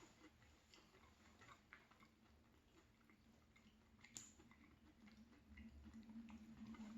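Near silence: quiet room tone with faint, scattered small clicks and a faint low hum in the last couple of seconds.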